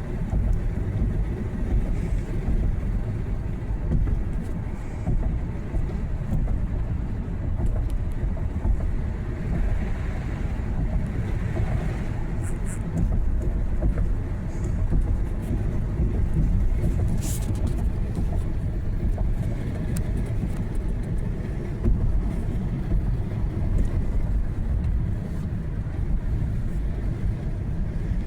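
Steady low rumble of a car's engine and tyres heard from inside the cabin while driving, with a few brief clicks.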